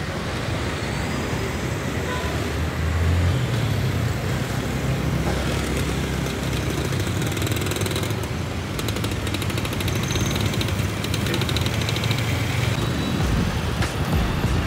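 Road traffic: a motor vehicle engine running steadily with road noise, and a quick rattling patch about eight seconds in.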